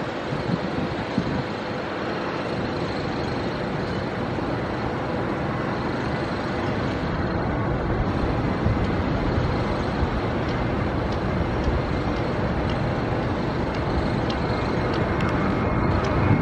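Twin-engine Airbus A320-family airliner at takeoff power during its takeoff roll: a steady jet roar with a faint whine, growing a little louder toward the end as the nose lifts for liftoff.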